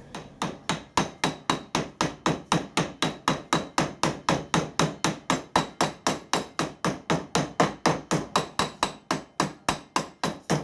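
Copper-faced mallet tapping an oil seal down into a tractor half-shaft bearing housing: a quick, even run of light blows, about four a second, each with a short metallic ring.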